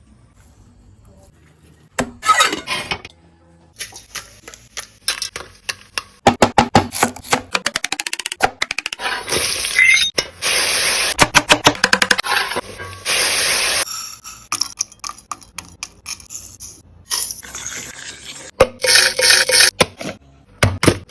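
Kitchen cooking sounds: a fast run of sharp knocks, stretches of loud hissing, and clinks of pots, pans and utensils.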